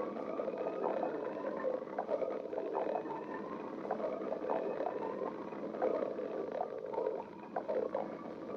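A person's stomach growling: continuous gurgling with many short pops and a slowly wavering, drawn-out whine.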